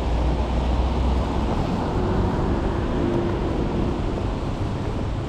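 Steady hiss of a rainy city street, wet traffic and rain blended into one even noise, with a deeper rumble in the first second or so.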